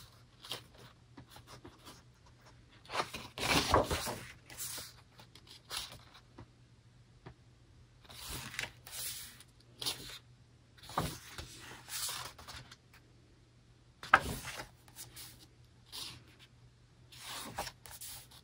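Pages of a photobook being turned and handled by hand: a series of paper rustles and swishes every second or two, the loudest about three to four seconds in.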